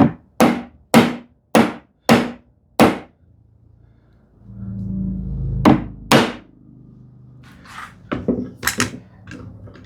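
Sharp knocks on a glued-up wooden frame: six strikes about half a second apart, two more a few seconds later, then a few lighter ones near the end. The side is being knocked in to bring the frame square.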